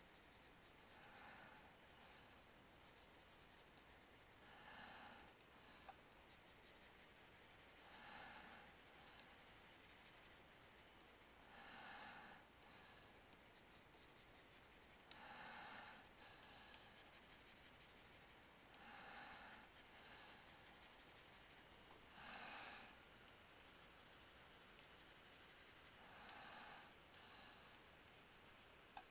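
A person breathing faintly and steadily through the nose, one breath about every three and a half seconds.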